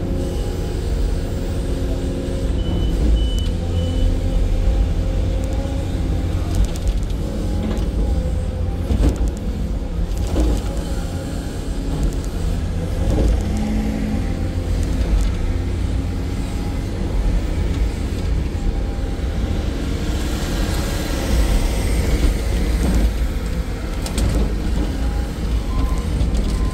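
Excavator's diesel engine running steadily with the hydraulics working, with a few sharp knocks and a stretch of louder hiss about two-thirds of the way through.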